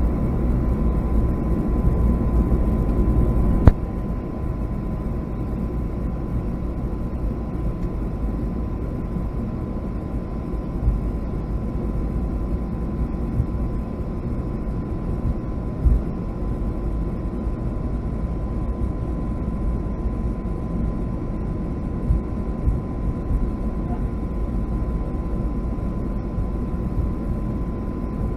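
Steady cabin noise of a Boeing 757-200 on the ground, engines running while it waits or taxis before takeoff. A sharp click comes about four seconds in, after which the noise is a little quieter.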